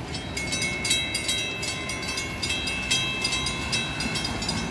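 Several mechanical railroad crossing bells ringing at once, a rapid, uneven clatter of strikes over a steady low rumble, still sounding as the crossing gates rise after the train has cleared.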